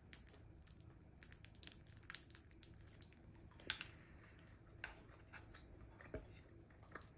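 Flaky crust of a chestnut croissant crackling as it is torn apart by hand: a run of crisp little crackles, the loudest about three and a half seconds in, then a few fainter ones.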